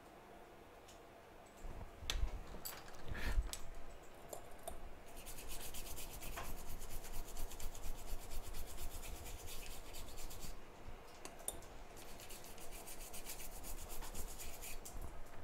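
Cleaning swab scrubbing the solder pads of an iPhone X logic board wet with cleaner, a fast scratchy rubbing from about five seconds in, with a short break near ten seconds. A few knocks and bumps of handling come a couple of seconds in.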